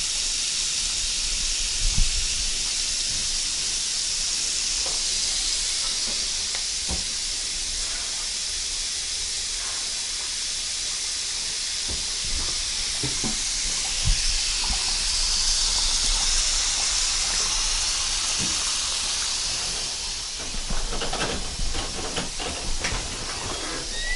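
A steady high hiss, with scattered faint knocks and a busier run of clicks and knocks in the last few seconds.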